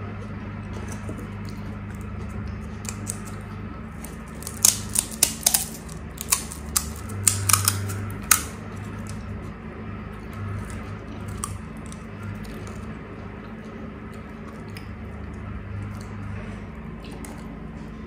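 Crisp fried puri (golgappa) shells crackling: about a dozen sharp crunches in a cluster a few seconds in, then quieter, over a steady low hum.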